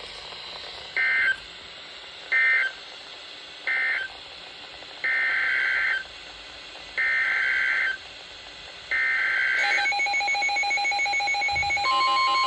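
Emergency Alert System SAME digital data bursts, a raspy two-tone warble: three short end-of-message bursts closing the tornado warning, then three longer header bursts announcing the next alert. Near the end a steady electronic alert tone begins.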